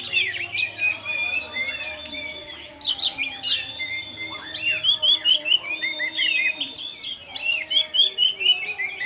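Orange-headed thrush singing a fast, varied song of whistles and chirps, with runs of short, quickly repeated notes in the second half.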